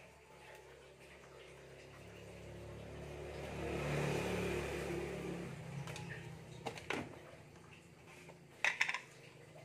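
A motor vehicle passing by, rising and fading over about four seconds, then a few sharp clinks of kitchenware in two short clusters near the end.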